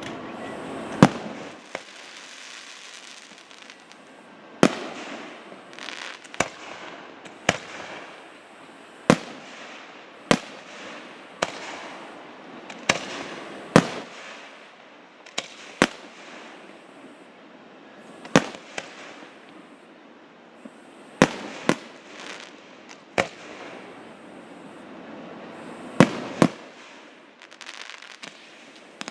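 Aerial fireworks bursting overhead: sharp bangs at irregular gaps of one to three seconds, each trailing off in a smear of noise.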